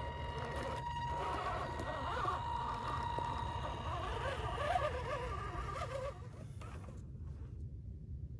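Electric motor and gearbox of a scale RC rock crawler whining as it creeps over boulders, the pitch wavering with throttle and load, over a steady low rumble. About seven seconds in the whine stops and only the low rumble is left.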